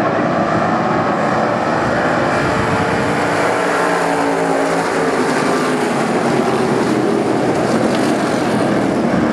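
A pack of dirt-track race cars running on the oval. Many engine notes overlap, rising and falling as the cars go by.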